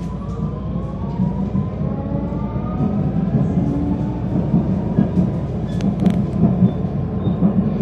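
Vienna U-Bahn metro train accelerating out of a station, heard from inside the car: the traction motors' whine rises in pitch in several tones over the first few seconds, over a steady low rumble of wheels on rail that slowly grows louder, with a few short clicks near the end.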